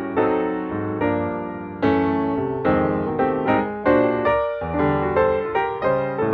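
Background music: a piano playing a gentle melody in a string of struck chords, each ringing and fading before the next.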